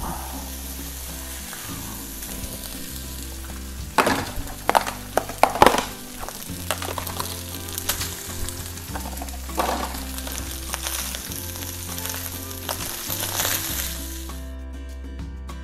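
Cold cooked rice frying in hot oil in a wok: a steady sizzle, with a cluster of knocks and scrapes from the spatula and pan about four to six seconds in and a few more later. The sizzle cuts off about a second before the end.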